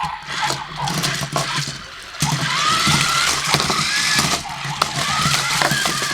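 Remote-control Grrrumball creature toys battling: their electric drive motors whine, rising in pitch again and again from about two seconds in, over frequent plastic knocks and rattles as the toys bump and clatter into each other.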